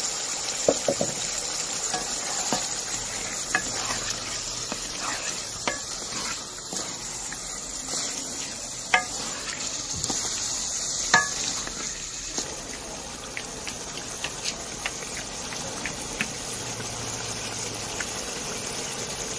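Potatoes and peas sizzling in oil in an aluminium pot, stirred with a wooden spatula, with a few sharp knocks of the spatula against the pot.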